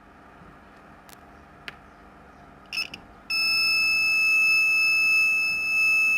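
A couple of faint clicks and a brief chirp, then about three seconds in a 12 V electronic buzzer on a MOSFET battery-charger cut-off circuit starts a steady, high-pitched beep. This is the buzzer the circuit sounds as its switching alert.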